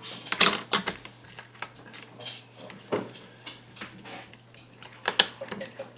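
Scattered plastic clicks and clacks of X-Wing miniature ship bases and maneuver templates being picked up and set down on the table as a ship is boosted. A few sharp clacks come about half a second in, with another near the end.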